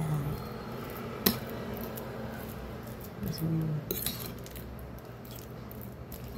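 Metal fork mashing banana on a ceramic plate, with sharp clinks of the tines against the plate: one about a second in and a quick cluster around four seconds.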